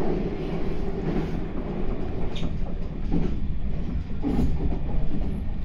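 Meitetsu 9500 series electric train running, heard from inside the front car: a steady low rumble of wheels and running gear, with a few brief knocks about midway.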